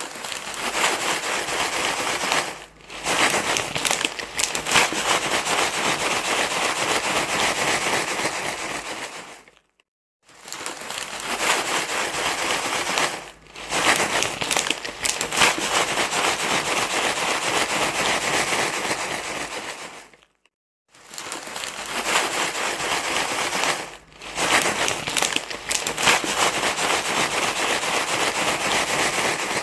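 Loud, continuous crinkling rustle, like something being crumpled and handled, used as a baby-calming sound. It repeats in a loop about every ten seconds, with a brief silence between passes and a short dip a few seconds into each.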